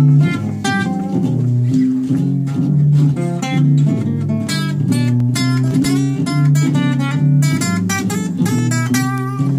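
Two guitars, an archtop and an acoustic, played together in an informal jam with quick, steady strumming and picked notes.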